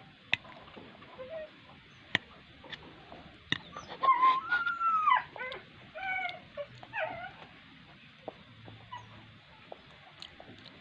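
A dog whining in several short calls that rise and fall in pitch about halfway through, after a few sharp clicks.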